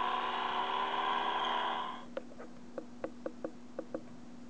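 Electronic sound effect from a DX Toridevendor toy motorcycle's built-in speaker, triggered by the button on its tank. It plays tinny for about two seconds and cuts off, followed by a run of short, sharp clicks.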